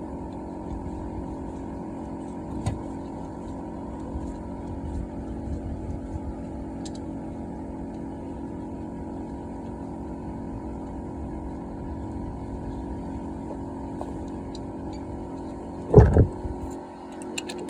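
A machine running with a steady, even hum, with a small click a few seconds in and a loud knock near the end, after which the hum drops away.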